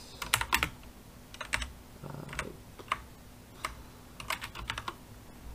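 Computer keyboard keys clicking as code is typed: a dozen or so scattered keystrokes with short pauses between them.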